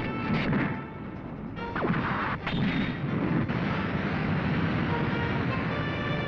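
Tokusatsu fight-scene soundtrack: music under sound effects of blasts and crashes in the first half, with a short falling whistle about two seconds in. Steady held music tones carry the second half.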